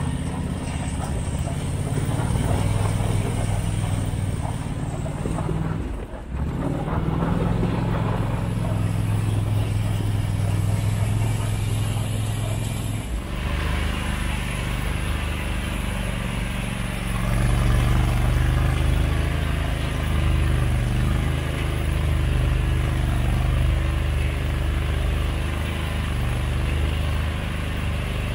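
Argo 6x6 amphibious ATV engine running steadily under way. It briefly drops away about six seconds in, and its tone shifts about thirteen seconds in.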